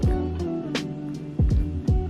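Background music: guitar with sliding notes over a drum beat with deep kick-drum thumps.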